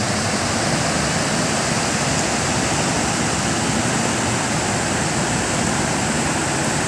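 Water pouring over a small weir (grojokan), a steady, unbroken rush.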